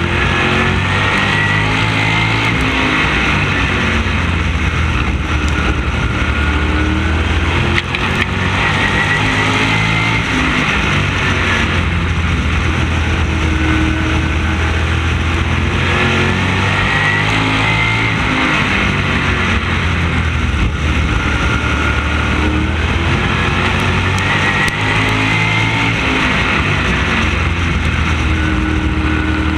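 Open-wheel race car's engine heard onboard at racing speed, its pitch climbing on the straights and easing off into the turns over and over, lap after lap.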